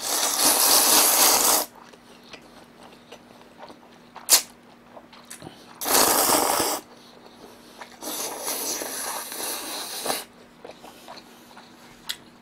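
Cold buckwheat soba noodles slurped loudly three times: a long slurp at the start, a short one about six seconds in, and a longer one from about eight seconds in, with a single sharp click about four seconds in.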